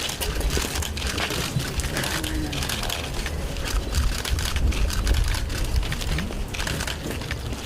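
Wind buffeting the microphone, a steady low rumble, with irregular crackling and rustling over it.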